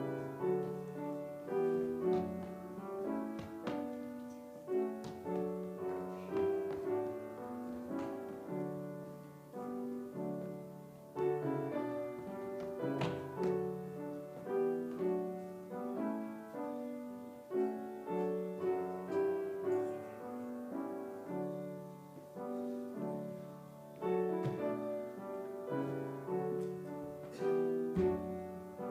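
Solo piano playing a slow offertory piece, chords and a melody moving steadily with no voices.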